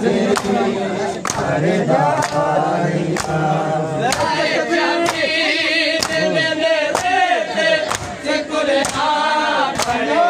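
A crowd of men chanting a mourning lament together, with sharp hand slaps on bare chests about once a second in time with the chant: Shia matam.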